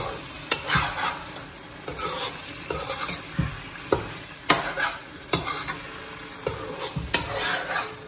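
A metal spatula stirring thick brinjal curry in a non-stick wok, scraping through the gravy and knocking sharply against the pan several times, over the sizzle of the gravy cooking on a low flame.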